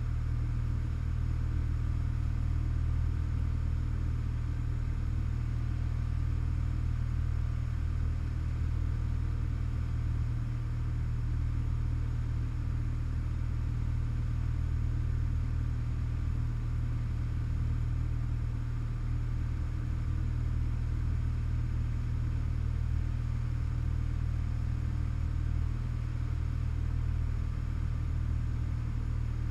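Single-engine light aircraft's piston engine and propeller droning steadily in flight, heard from inside the cabin.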